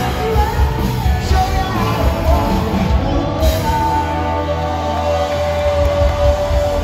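Live rock band playing: a lead singer over electric guitars, bass and drums, heard from the audience. A long held note starts about four seconds in and drops lower near the end.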